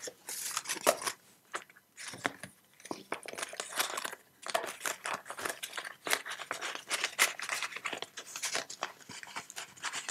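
Euro banknotes and a paper envelope rustling and crinkling as a bundle of notes is slid into the envelope, in quick, irregular rustles with a couple of short pauses.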